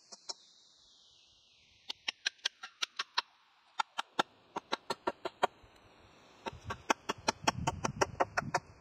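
Quick, sharp knocks of a hand tool working a wooden pole, about four or five a second, in three runs broken by short pauses; a low rumble of handling joins the last run near the end.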